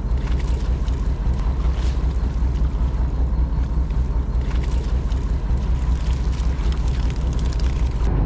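Fishing boat's engine running steadily, a constant low drone.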